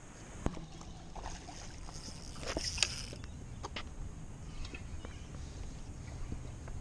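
Low steady wash of water lapping at the edge of a seawall. A soft click comes about half a second in, and a brief rustle and scrape of handling is heard around three seconds in.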